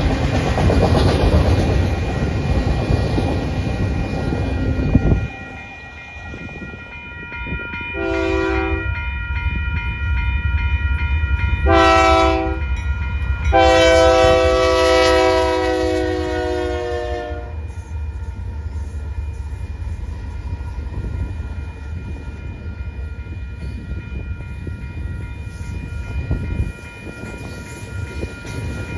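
Freight train rolling past on the rails, then, after a sudden cut, a Union Pacific freight's diesel locomotive horn sounds two short blasts and one long one. The locomotives' low engine rumble and the rolling of double-stack container cars continue underneath.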